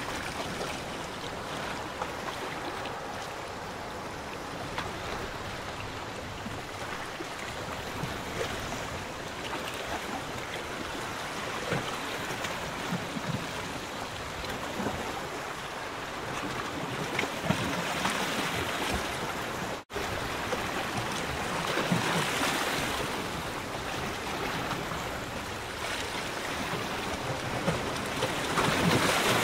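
Small lagoon waves lapping, a steady wash of water that swells louder now and then; the sound drops out for an instant about two-thirds of the way through.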